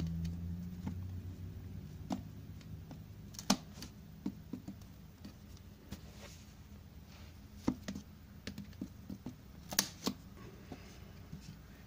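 Cardboard box packaging being cut and handled: scattered sharp clicks and snaps, the loudest about three and a half and ten seconds in.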